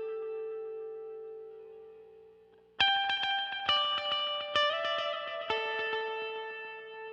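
Solo electric guitar played through a tape-echo effect. A held note dies away, then about three seconds in four notes are picked roughly a second apart, each trailing off into its echoes.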